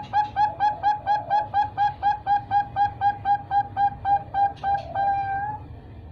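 Young three-month-old perkutut bangkok (Thai-bred zebra dove) calling: a fast series of short, even coo notes, about four a second, ending with one longer, slightly rising note.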